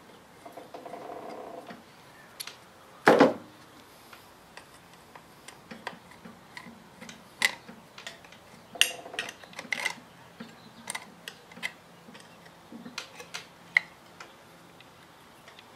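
A screwdriver starting small screws into a Tesla drive unit's inverter board and housing: scattered light metal ticks and clicks, a short run of rapid ticking near the start and again about nine seconds in, and one louder knock about three seconds in.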